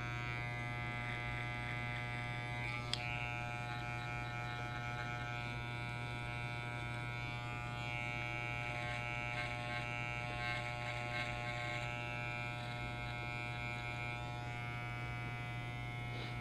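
Corded T-blade hair trimmer running with a steady electric buzz as it lines the hairline around the ear. There is a single small click about three seconds in.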